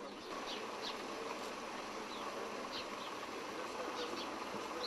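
Steady outdoor background noise with a faint constant hum and scattered short, high chirps.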